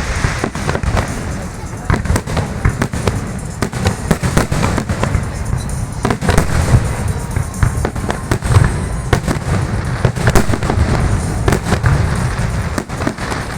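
Fireworks display: firework shells bursting in many quick bangs and crackles, one after another, with music playing underneath.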